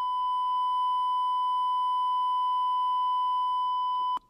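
Steady 1,000 Hz sine tone from a small loudspeaker driven by a wave function generator, cutting off suddenly near the end.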